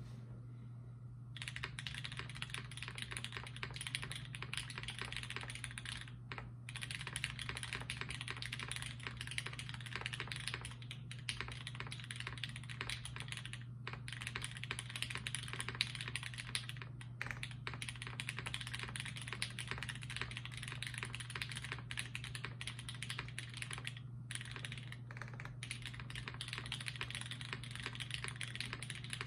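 Typing on a Forever65 custom mechanical keyboard with lubed Hyperglide Black linear switches on a carbon fibre plate and GMK keycaps. A fast, steady run of keystrokes starts about a second and a half in, with a few short pauses.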